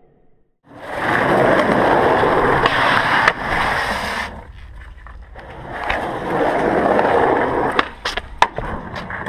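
Skateboard wheels rolling on concrete, loud twice over, then several sharp clacks of the board on concrete near the end as it pops off the stairs.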